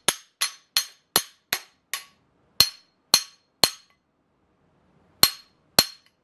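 Hammer blows on a cold chisel driving a bronze kingpin bushing into a Club Car Precedent front spindle: about eleven sharp metal-on-metal strikes, each with a brief ring. The first six come in a quick run of about three a second, then three more, a pause of about a second and a half, and two more near the end.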